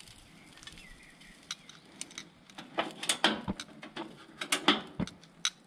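Kitchen utensils and dishes being handled: an irregular run of clicks and clatters, with two duller knocks, starting about a second and a half in.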